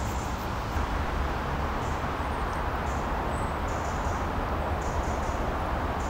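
Steady rushing outdoor background noise with a low rumble under it, and faint short high chirps scattered over it.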